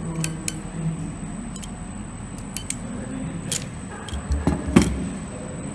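Scattered small clicks and ticks of hand tools and cable being handled. A cluster of louder knocks with a dull thud comes near the end.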